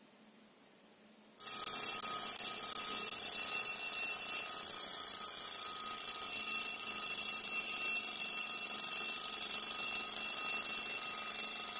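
Imhof Genève mechanical alarm clock's alarm ringing loudly and continuously. It sets off about a second and a half in and keeps going steadily.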